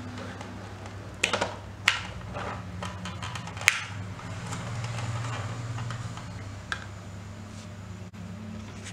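A few sharp plastic clicks and taps from hands handling the wiring and parts inside an opened computer UPS's plastic casing. There is a short cluster a little over a second in, single clicks near two and four seconds in, and a faint one near seven seconds. A steady low hum runs underneath.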